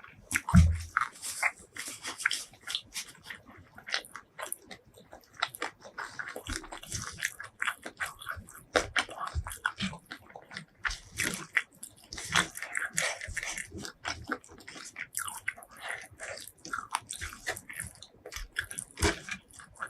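Close-miked crunching, biting and chewing of crispy fried food, a dense irregular crackle throughout, with a dull thump just after the start.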